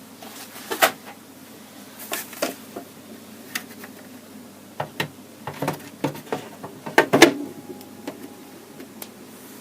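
Plastic case of a Commodore 1541 disk drive being handled and fitted on: about a dozen irregular clicks and knocks, the loudest about seven seconds in, over the steady hum of the drive's running cooling fan.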